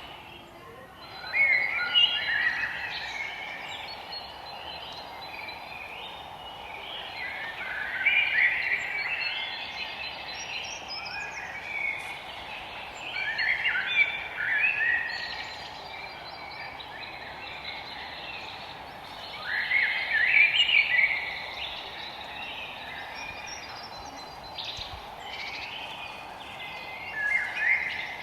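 Forest birds singing: a short, chirping song phrase comes back about every six seconds over a steady background hiss.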